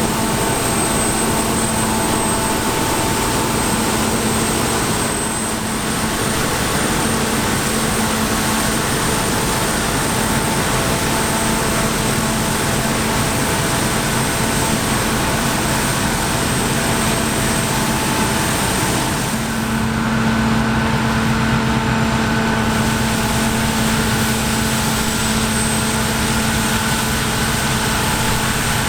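Heavy harvest machinery running steadily: a continuous engine drone with a high, steady whine on top. About two-thirds of the way through the sound shifts, with the low hum becoming stronger and a new mid-pitched whine appearing.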